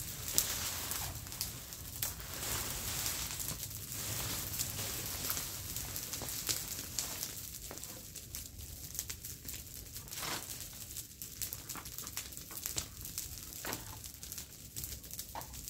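Dry brush and leaves crunching and rustling as they are raked with a stick onto a burning brush pile, with the pile crackling as it burns. Many irregular sharp snaps.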